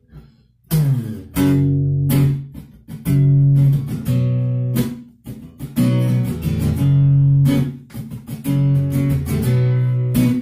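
Acoustic guitar strumming chords in a steady rhythm, starting about a second in.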